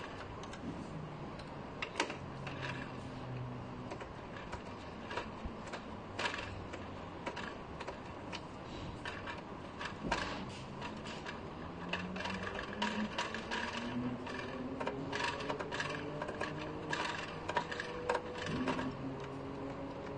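Screwdriver turning a screw out of a photocopier's sheet-metal bracket: irregular small metal clicks and ticks. A faint hum slowly rising in pitch sits in the background in the second half.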